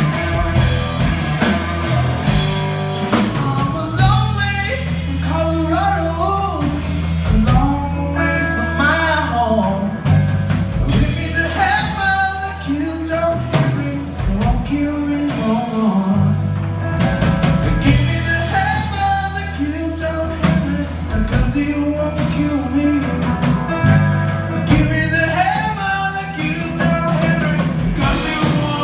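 Live blues-rock trio playing loudly: electric guitar, electric bass and drum kit, with singing over a steady bass line.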